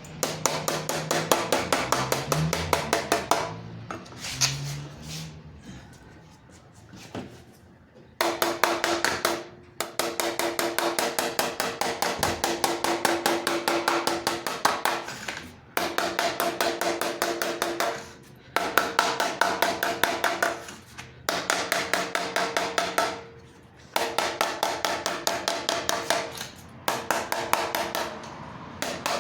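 Rapid, steady hammer taps on a metal radiator part, several strikes a second with a metallic ring. The taps come in runs of a few seconds broken by brief pauses, with a longer quieter gap a few seconds in.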